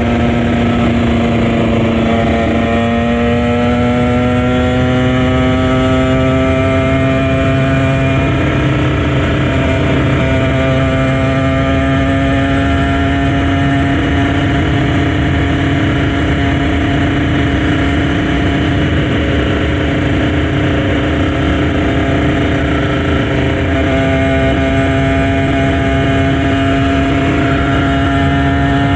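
Kawasaki Ninja RR 150's two-stroke single-cylinder engine running under way at steady revs, its pitch slowly climbing over the first several seconds, then holding, with a short dip about two-thirds of the way through. A steady rushing noise runs underneath.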